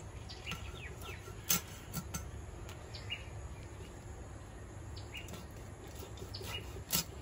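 Short bird chirps over a steady low background rumble, with a few sharp clicks, the loudest about one and a half seconds in and again near the end.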